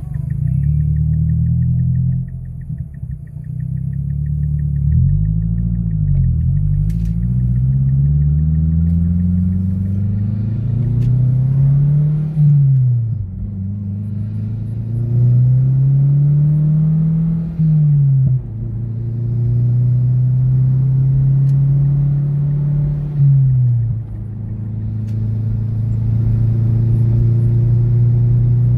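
Turbocharged 2.3-litre four-cylinder Mazdaspeed6 engine, with a full 3-inch exhaust and Apexi N1 muffler, heard from inside the cabin. It pulls away from a standstill and accelerates, its pitch rising and dropping with upshifts about 12, 18 and 23 seconds in, then settles to a steady cruise.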